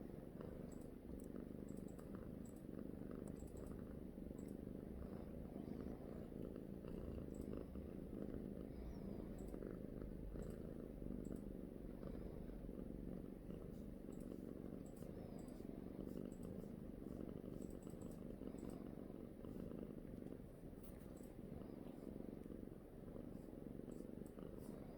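A domestic cat purring steadily and continuously, with faint small ticks now and then.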